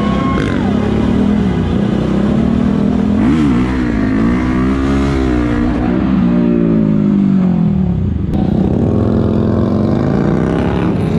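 Supermoto motorcycle engine revving as it rides, its pitch rising and falling again and again as the throttle is opened and closed, with a sudden brief cut about eight seconds in before it climbs again.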